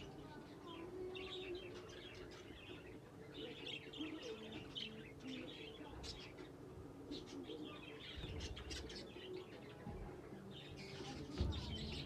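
Many budgerigars chattering together in an aviary flight, a dense, continuous mix of short high chirps.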